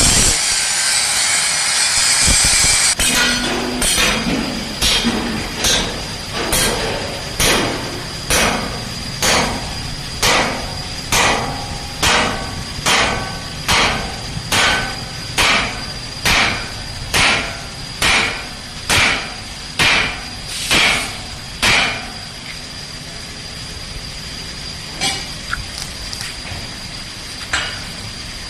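Hammer striking a steel part on a concrete mixer's frame to drive it tight: some two dozen steady blows, about one and a half a second, each with a high metallic ring, then a few lighter taps near the end. A loud hiss comes first, before the hammering starts.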